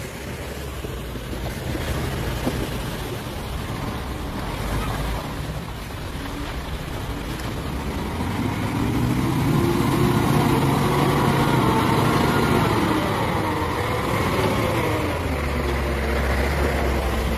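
Heavy diesel truck engines labouring as tanker trucks push through deep, loose sand. The engine note grows louder about eight seconds in and holds, over a steady rushing noise.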